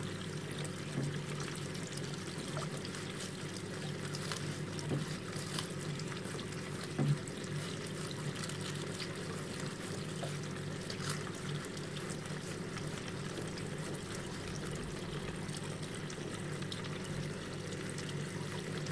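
Würth Biomatic bio parts washer running: cleaning fluid pours and trickles from the flow-through brush and flexible nozzle onto an aluminium intake manifold over the steady hum of the washer's pump. A few light knocks of the brush against the metal, the loudest about seven seconds in.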